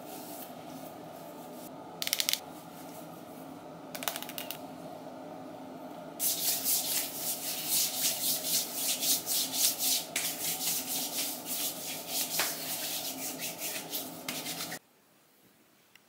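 Hands rubbing briskly over bare skin of the arms and shoulders. Two short scrapes come first, then a long run of quick rubbing strokes lasting about nine seconds, over a steady low hum. All of it cuts off abruptly near the end.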